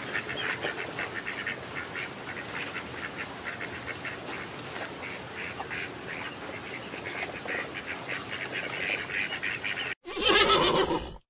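Whistling ducks calling: a steady run of quick, high whistling notes, many to the second. Near the end, after a sudden break, a pony gives a loud whinny.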